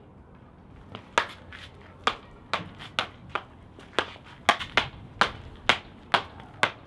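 A stick being knocked and struck in play-fighting: about a dozen sharp clacks, irregularly spaced at two or three a second, starting about a second in.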